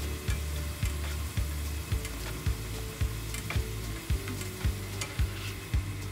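Diced potatoes sizzling in oil in a nonstick frying pan, stirred and scraped with a plastic spatula, which makes scattered sharp ticks over the crackle. Background music with a steady beat plays underneath.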